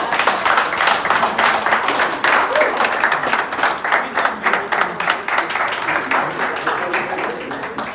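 An audience applauding, a dense clapping of many hands that eases off a little near the end.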